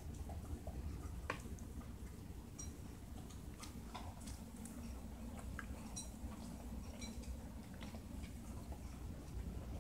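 Pembroke Welsh Corgi puppies eating dry kibble from bowls: irregular crunching and small clicks of kibble against the bowl, over a low steady hum.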